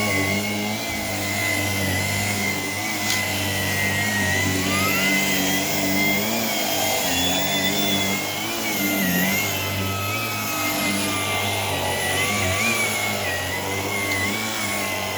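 Shark PowerDetect IP1251 vacuum cleaner running steadily, its motor whine wavering, rising in pitch about four seconds in and easing back down after about eight seconds.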